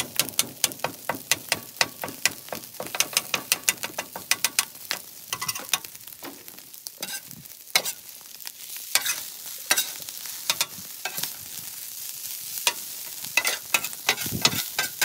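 Metal griddle spatulas chopping and scraping egg and rice on the hot steel top of a Blackstone griddle: rapid clacks and scrapes over a steady sizzle, played back at four times speed.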